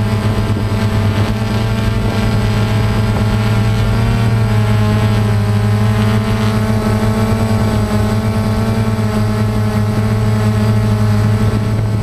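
DJI Phantom quadcopter's four motors and propellers buzzing steadily, heard close up through the camera on the drone itself, the pitch wavering slightly as it manoeuvres.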